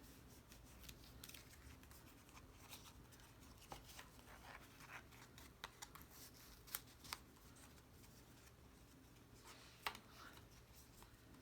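Faint, sporadic rustling and light taps of cardstock being handled and folded, with a few sharper clicks scattered through, the clearest about seven and ten seconds in.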